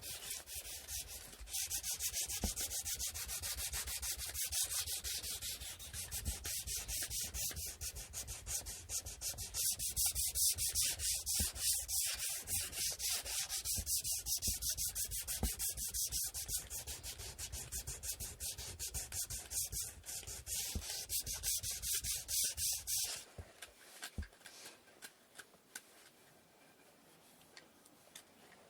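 Hand sanding of a wooden inkle loom part: quick, even back-and-forth strokes of abrasive on wood, which stop about three-quarters of the way through, leaving only faint light taps and handling sounds.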